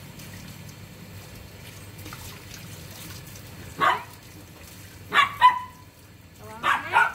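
A dog barking in short, sharp barks: one about four seconds in, a quick pair a second later, then two more near the end.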